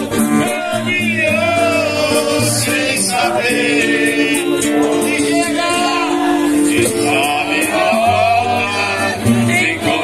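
Serenade song sung by several voices, backed by instruments holding steady low notes.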